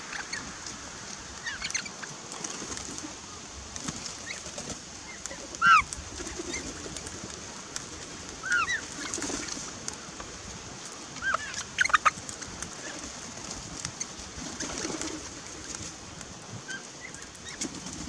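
A flock of parrots, mostly galahs with a few crimson rosellas, feeding at a backyard station and giving short scattered calls. The loudest calls come about six and twelve seconds in, with an occasional wing flap.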